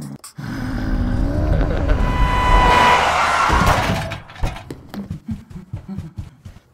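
Car sound effect: the engine runs as the car drives up, and a tire squeal builds as it brakes to a stop. From about 4 s in comes a run of soft, uneven low thumps.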